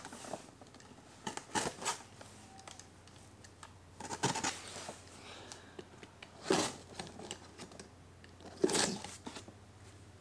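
Box cutter slicing through the packing tape on a cardboard box in about five short strokes with pauses between.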